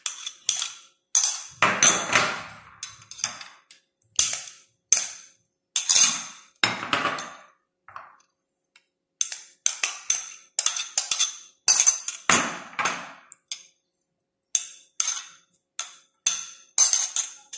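Metal spoons clinking and scraping against small ceramic bowls and a glass bowl as cut fruit is scraped out and tipped into the glass bowl: a quick, irregular series of clinks with short ringing, with a couple of brief pauses.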